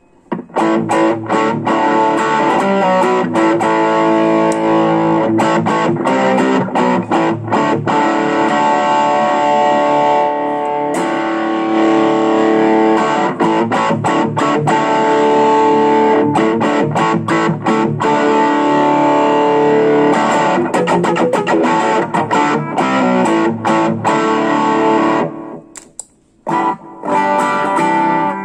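Electric guitar played through a Selah Effects Scarlett Love V2 overdrive pedal into a guitar amplifier: picked notes and held chords with a distorted edge. The sound shows the repaired pedal passing signal again now that its failed 7660 voltage-converter IC has been replaced. The playing breaks off briefly near the end, then starts again.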